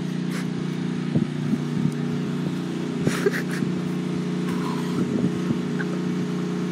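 A steady motor hum, engine-like, with a few soft knocks and rustles over it.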